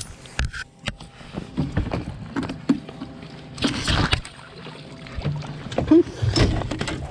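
A blue catfish splashing at the side of a boat as it is grabbed with a lip gripper and hauled aboard, the loudest splash about four seconds in. Knocks and clicks of handling against the boat run throughout, with a sharp thump about six seconds in.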